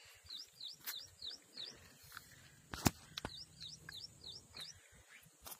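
A bird calling in two runs of short, high chirps, each dipping then rising in pitch, about a third of a second apart. A sharp click about three seconds in is the loudest sound.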